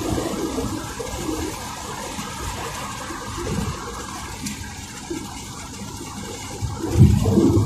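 Steady rushing road and wind noise of a car driving. About seven seconds in, it swells into a much louder low rumble.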